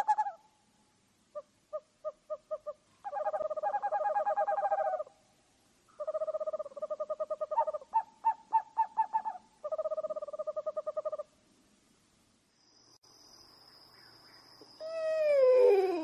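Owl calls: bursts of rapid trilling notes, some held for a second or two, with two callers overlapping about three seconds in. Near the end a steady high whine sets in and a loud call slides sharply down in pitch.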